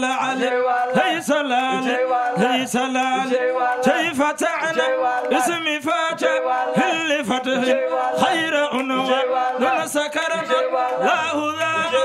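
A man chanting an unaccompanied Islamic devotional song into a microphone, in a continuous, ornamented melody.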